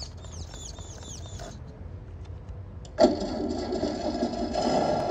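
A bird chirps a quick run of short, falling notes. About three seconds in, a much louder sustained sound starts suddenly and keeps going.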